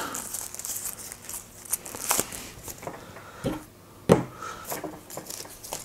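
Thin plastic wrapping crinkling as it is peeled off a small wireless microphone unit, with several sharp clicks and taps as the small plastic units are handled and set down on a table. The loudest tap comes a little after the middle.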